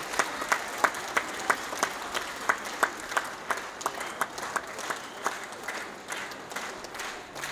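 Theatre audience applauding a dance performance, with loud, regular claps about three a second standing out over the general applause, which thins near the end.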